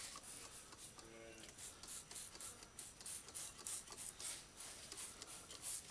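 Hand trigger spray bottle of WD-40 being pumped over and over, a quick series of short hissing squirts at about two to three a second.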